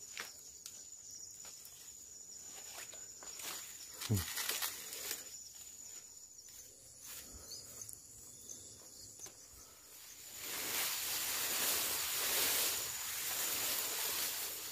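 Footsteps on a forest path, with light scattered steps at first and denser rustling steps from about ten seconds in, over a steady high insect drone. A short, low, falling sound stands out about four seconds in.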